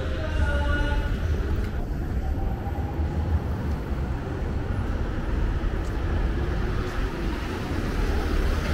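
Steady low vehicle rumble under an elevated railway viaduct, with a box truck's engine drawing close and passing near the end.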